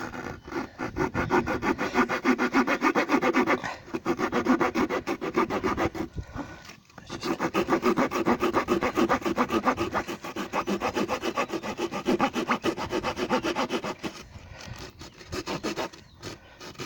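Small saw blade of a Victorinox Huntsman pocketknife cutting through a wooden broom handle with quick, even back-and-forth strokes. The sawing breaks off briefly twice and goes lighter near the end.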